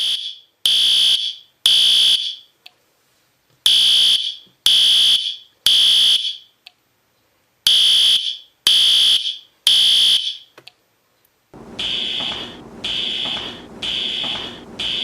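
Fire alarm beeping in a high-pitched, loud pattern of three beeps about a second apart, then a short pause, repeated: the temporal-three evacuation signal. About eleven seconds in, a steady background noise comes in under the beeps.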